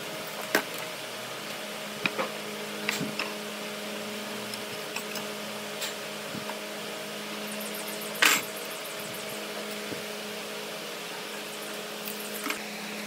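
Light clicks and taps of hand marking tools (a tape measure, a metal square, a metal straightedge and a pencil) set down on and drawn along a wooden beam on a workbench. The taps are scattered over a steady background hum. The loudest is a sharper clack with a brief rattle about two-thirds of the way through.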